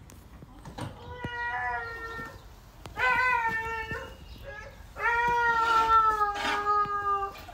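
Three long, drawn-out, meow-like animal cries, each holding one pitch and sagging slightly toward its end; the last is the longest and loudest.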